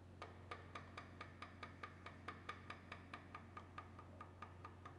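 Faint, rapid light taps of a red plastic mallet on a steel block held loosely in a milling-machine vise, about four or five a second, nudging the block square against a solid square before the vise is tightened.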